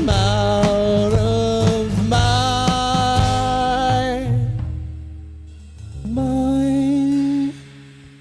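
A folk punk trio of guitar, bass and drums playing the closing bars of a live song: held notes over drums that fade out about four seconds in, then a final chord from about six seconds in that is cut off sharply about a second and a half later, leaving a fading ring.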